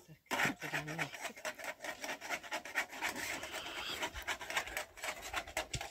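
Rapid, irregular rough scraping strokes, repeated many times a second.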